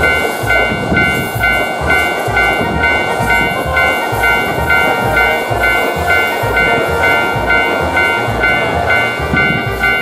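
Japanese level-crossing warning bell ringing in a steady kan-kan rhythm, about two to three dings a second, while an electric commuter train runs past, its rushing noise easing near the end. Background music with a steady low beat underneath.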